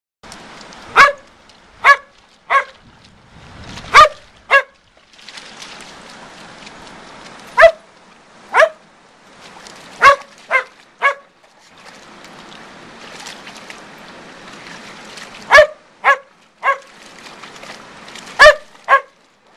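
Border collies barking: about fifteen short, sharp barks in bursts of two or three, a few seconds apart, over a steady hiss.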